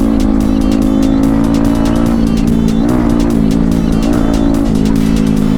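Background music with a steady fast beat and a sustained low drone, at a high level.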